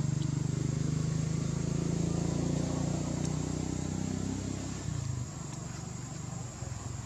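A motor vehicle's engine running, a low steady drone that dies down about five seconds in.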